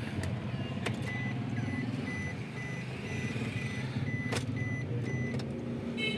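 Suzuki WagonR's three-cylinder engine running slowly, heard from inside the cabin, with a single-pitched electronic beep repeating about twice a second that stops near the end: a reversing warning beeper as the car backs out. Two sharp clicks break in along the way.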